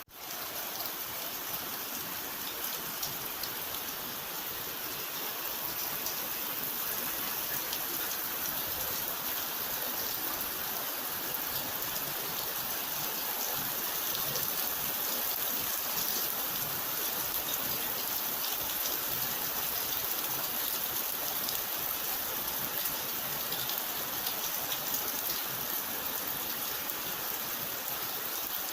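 Steady rain falling: a dense, even hiss of drops with fine patter, coming back in after a brief dip at the very start.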